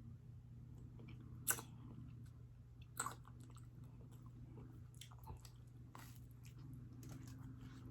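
Close-miked chewing and biting into a chicken steak sandwich and homemade fries. Two sharp, crisp crunches come about a second and a half apart, then a few fainter smacks.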